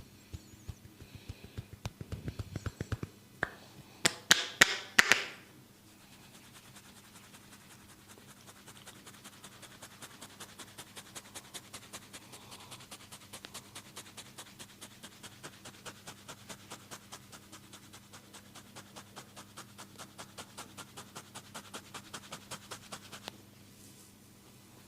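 Head massage: hands tapping on the scalp and forehead. A quick run of taps opens, then four loud smacks come about four seconds in, and then a long, steady tapping at about five a second stops a second or two before the end.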